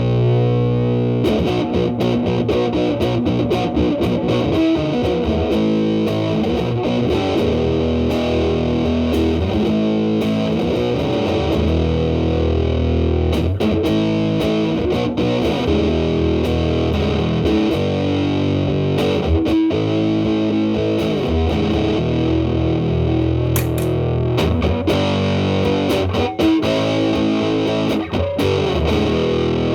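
Telecaster played through a Big Muff Pi fuzz pedal, sustain knob at 12 o'clock, into the clean channel of a Marshall Valvestate amp: heavily fuzzed chords and riffs that ring on and change every half second or so, with pick attacks.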